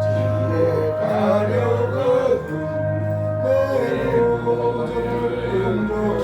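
Church worship music: sustained keyboard chords with a melody line moving above them.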